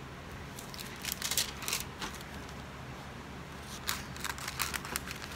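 Scissors cutting through parchment paper: short crisp snips in two clusters, about a second in and again from about four seconds in.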